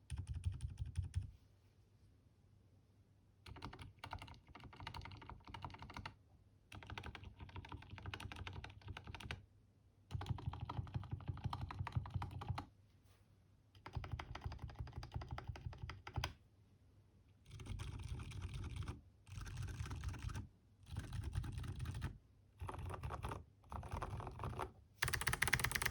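Typing on a Neito mechanical keyboard fitted with lubed silent switches: Boba U4 silent tactiles on the letter keys and Gateron Ink V2 Silent Blacks on the rest. The keystrokes come in quick runs of a second or a few seconds with short pauses between them, and the last run near the end is the loudest.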